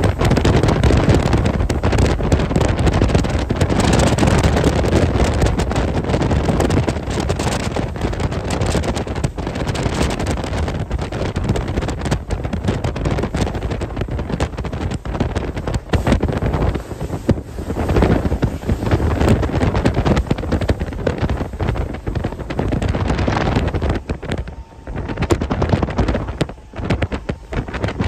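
Wind buffeting the microphone on a moving boat, a steady gusting rush with the boat and water noise underneath, easing briefly twice near the end.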